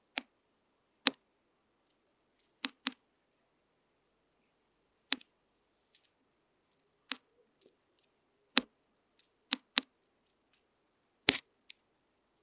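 About ten sharp, isolated clicks or taps at irregular intervals, two of them in quick pairs, with near silence between.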